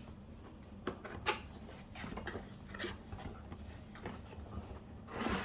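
Packaging handling as a small coffee machine is lifted out of its cardboard box: light knocks and clicks with rubbing and scraping, and a louder rustle near the end.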